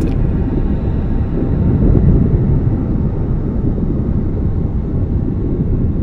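Steady, muffled low rumble of underwater ambient noise picked up through a camera housing, with no distinct clicks or bubbles.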